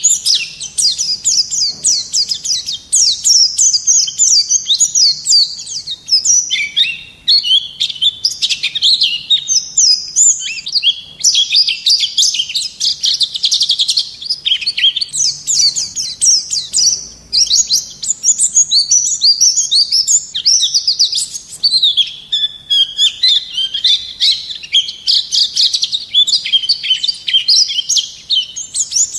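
A white-eye (pleci) singing a fast, nearly unbroken twittering song of rapid high chirps, with only brief pauses.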